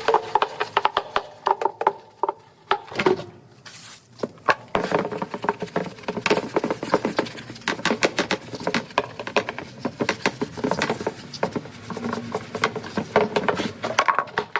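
Rapid scrubbing and wiping, a brush or rag working degreaser over the oily washer hub and tub, with a dense run of scraping and rubbing clicks that pauses briefly about four seconds in.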